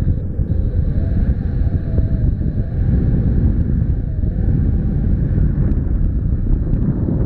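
Wind buffeting the microphone of a camera carried by a paraglider in flight: a steady, loud low rumble of rushing air as the wing glides in low for landing.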